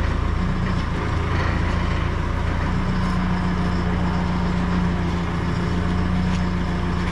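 Diesel engine of a JCB construction machine running steadily at low revs, heard from inside its cab.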